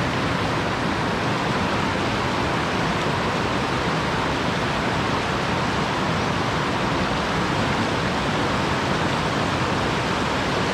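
Steady rush of a shallow river running over rocks, an even hiss of flowing water that doesn't change.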